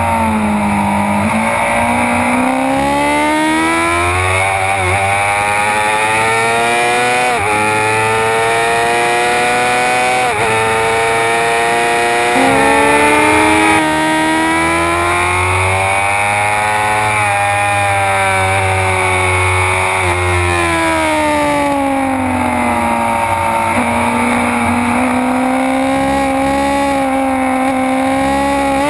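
Suzuki GSX-R 600's inline-four engine at full throttle on track, revving up through several upshifts in the first half, each shift a brief drop in pitch. Past the middle the revs climb once more, then fall away as the bike slows, and pick up again near the end.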